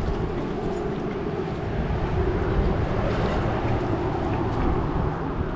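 Wind buffeting the microphone: a steady rumbling rush, with a constant low hum underneath.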